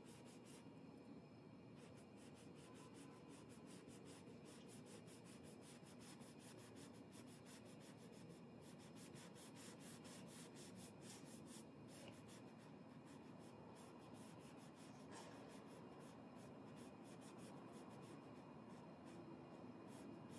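Small flat paintbrush stroking and dabbing thick paint onto canvas: faint, quick, scratchy brush strokes, several a second.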